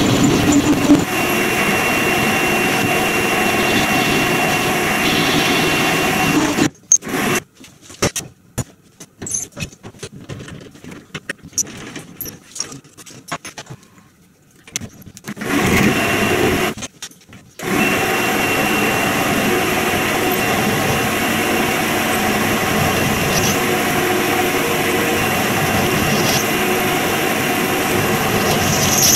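Chinese WM210V-type benchtop metal lathe running with a steady whine as its spindle turns the workpiece. It stops about seven seconds in, leaving scattered clicks and knocks as a keyless drill chuck is handled. It starts again after about fifteen seconds, stops briefly, and from about eighteen seconds runs steadily with the drill chuck in the tailstock.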